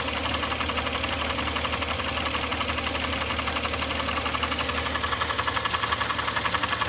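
Car engine idling with a fast, even knocking noise that appeared after the harmonic balancer was reinstalled; the owner is unsure whether the crankshaft or the wobbling harmonic balancer is the cause.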